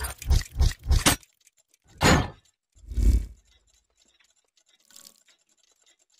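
Sound effects for an animated gear logo: a fast run of clanks for about the first second, then two heavier whooshing impacts about two and three seconds in, the second with a deep boom. A faint swish comes about five seconds in, followed by light ticking.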